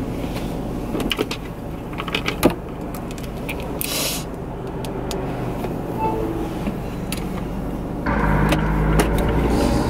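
Car engine running steadily, heard from inside the cabin, with scattered small clicks and knocks from handling things. About eight seconds in the sound grows louder and fuller.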